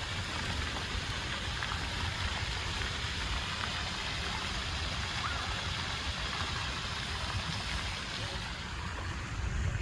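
Steady outdoor ambience: an even rushing noise over a low rumble, with a few faint short high sounds.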